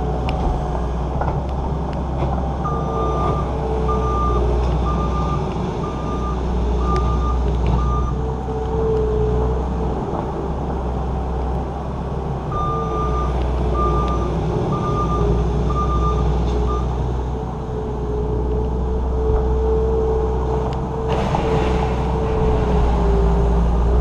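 New Holland L230 skid steer's diesel engine running under work with its reverse alarm beeping about once a second in two separate runs as the machine backs up. A rougher rushing noise joins for the last few seconds.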